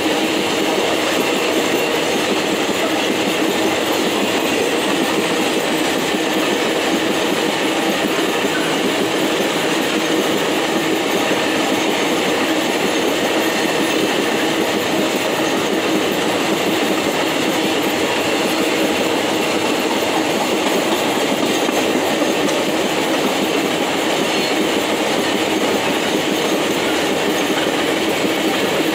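Empty steel iron-ore gondola wagons rolling past close by: wheels on rail making a steady, unbroken rumble and rattle.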